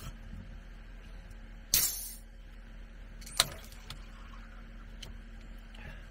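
A can of Guinness Draught cracked open by its pull tab about two seconds in, a sharp crack followed by a short hiss of escaping gas, then a single sharp click about a second and a half later.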